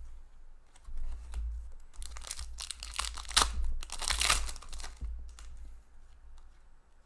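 Foil wrapper of an Upper Deck hockey trading-card pack being torn open and crinkled by hand, a run of crackling rustles from about two to five seconds in. A few light clicks of cards being handled come before it.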